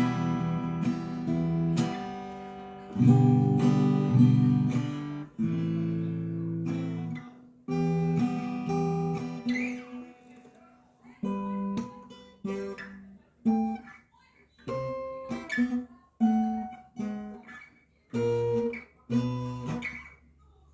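Acoustic guitar played fingerstyle in a percussive style: plucked chords and bass notes with sharp, knocking attacks. The first half is dense and loud. The second half breaks into short phrases and single notes with brief pauses between them.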